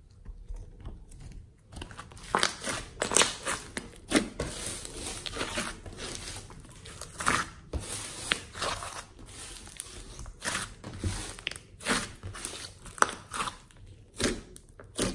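A large mass of homemade slime mixed with clay being stretched, folded and squeezed by hand, giving irregular sticky crackles and pops.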